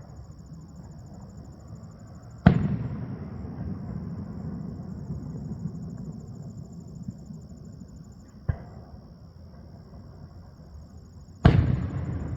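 Aerial fireworks shells bursting in three booms: a loud one a couple of seconds in, a softer one past the middle, and another loud one near the end. Each boom is followed by a long, low rumbling echo.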